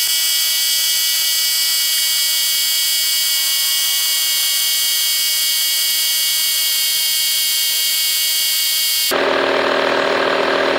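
Audew portable 12V air compressor running while it inflates a tire, heard as a steady high-pitched whine of many fixed tones with no low end, as in sped-up footage. About nine seconds in it switches back to its normal, lower running sound.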